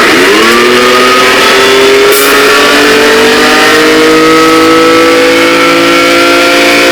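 Motor vehicle engine accelerating hard through a gear. Its pitch drops sharply at a gear change at the start, climbs steadily for about seven seconds, and drops again at the next shift.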